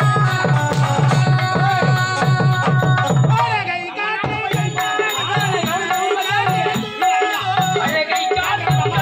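Therukoothu folk-theatre music: a drum keeps a quick, even beat under a melody. About three seconds in the beat loosens and a wavering, sliding melodic line comes to the front.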